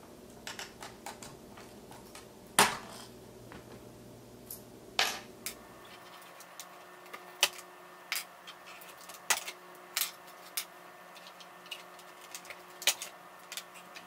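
Scattered sharp clicks and light knocks of a metal fork working against a plastic instrument cluster as the gauge needles are pried off their stepper-motor shafts, with the loose needles tapped down on a wooden tabletop.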